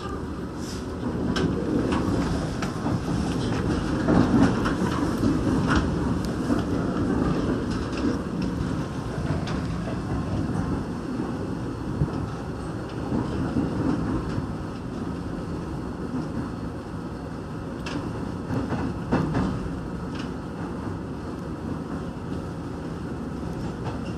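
Korail rheostat-controlled (신저항) electric multiple unit running along the line, heard from inside the passenger car: a steady rumble of wheels on rails with scattered sharp clacks over rail joints.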